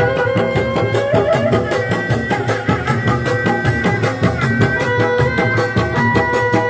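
Dogdog drums of a Sundanese reak ensemble beaten by hand in a quick, even beat of about six strokes a second. Over the drums a pitched instrument holds long notes and steps from one to the next.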